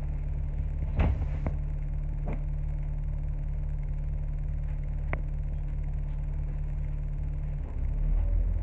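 Sheffield Supertram tram standing at a stop, its onboard equipment giving a steady low hum broken by a few sharp clicks. Near the end the hum changes and a rising whine sets in as the tram starts to pull away.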